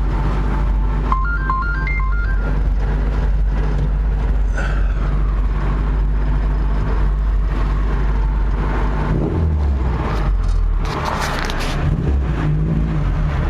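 BMW 2002's four-cylinder engine running with a steady low rumble, its note shifting about nine seconds in. A few short electronic beeps sound about a second in.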